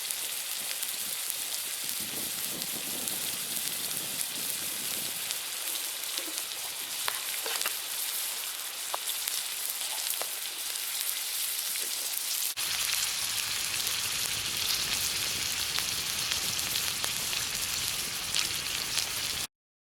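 Meat sizzling over a wood fire: a steady frying hiss with a few faint crackles. About two-thirds of the way through it changes abruptly to a louder, fuller sizzle, and it stops suddenly just before the end.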